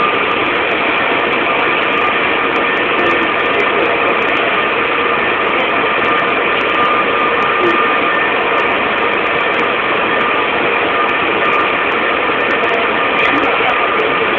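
Rubber-tyred Taipei Metro Muzha line train running at steady speed through a tunnel, heard from inside the car: a loud, even rushing rumble with a constant motor whine held at several fixed pitches.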